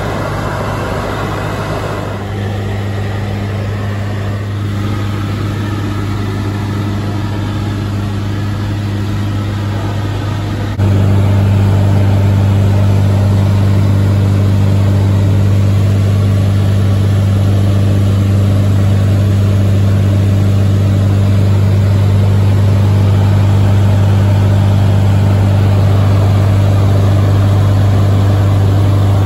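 A Jabiru J160 light aircraft's engine and propeller droning steadily in flight, heard from inside the cabin as a low, even hum. About eleven seconds in it steps up suddenly louder and then holds steady.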